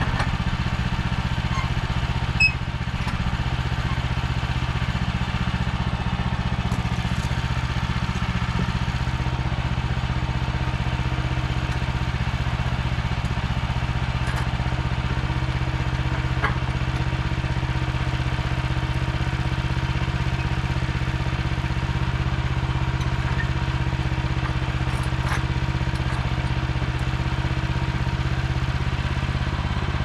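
Wood-Mizer LX25 sawmill's gas engine idling steadily. A single sharp knock sounds about two and a half seconds in, and a fainter one midway.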